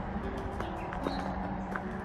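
Background music with held notes, over footsteps on a gravel path and a steady low rumble.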